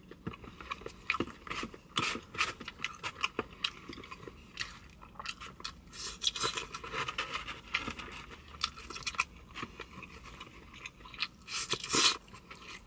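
Close-miked mouth sounds of a person eating noodles: wet chewing with many small lip smacks and clicks. Near the end comes a louder slurp as a mouthful of noodles is drawn in.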